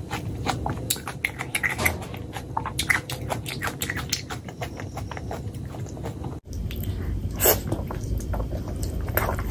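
Eating by hand: wet, sticky clicks of curry-coated fingers squeezing rice and a large piece of fatty pork belly in curry. About three-quarters through comes a loud bite into the pork, followed by chewing.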